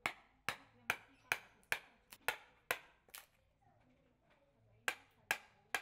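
Wooden mallet striking a steel chisel to carve a wooden mask: sharp, separate taps about two a second, a pause of over a second in the middle, then three more taps near the end.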